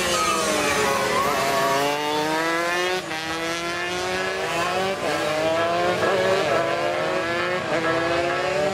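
Several two-stroke underbone racing motorcycles accelerating hard, their engines rising in pitch in repeated, overlapping sweeps.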